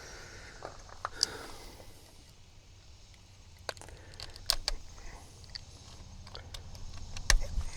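Hand tools clinking and clicking against metal in scattered single strikes, with a sharper cluster near the end, over a low steady hum.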